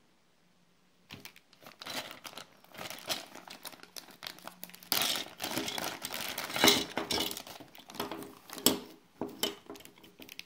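Clear plastic bag crinkling as it is handled and opened, starting about a second in, with a few sharp clicks of hard plastic camera mounts knocking together.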